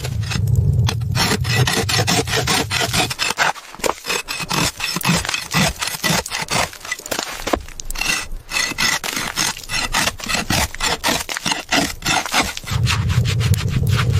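Rapid, repeated rasping scrapes, many strokes a second, starting about a second and a half in and stopping near the end, where a steady low rumble takes over.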